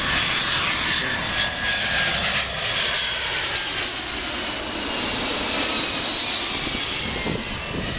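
Boeing 767-200's twin turbofan engines at approach power as the airliner passes low overhead on final approach: a steady jet rush with high whining tones that slide slowly down in pitch as it goes by, easing off near the end.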